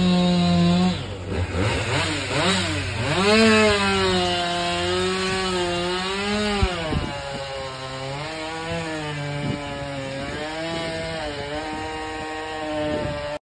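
Chainsaw running and cutting into the trunk of a large fallen Chinese cork oak (abemaki), its engine pitch dipping and rising again several times as the chain works through the wood. It stops abruptly near the end.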